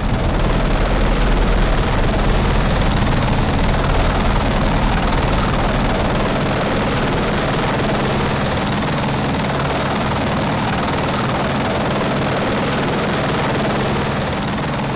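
California Highway Patrol AS350-type turbine helicopter flying low overhead, its main rotor and engine running steadily. The deep rotor throb is strongest in the first six seconds and eases a little after that.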